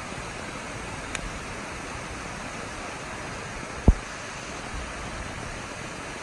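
Steady rushing hiss of an approaching storm, with one short, sharp thump about four seconds in.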